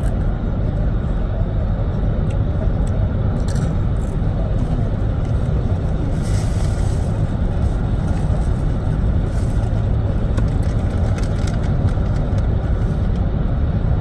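Steady low rumble of road noise inside a moving car, with faint crisp crunches and crinkles of potato chips being eaten.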